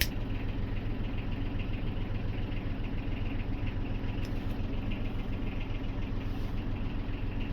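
A motor running steadily: an even low drone with a faint rapid pulse, and a single sharp click right at the start.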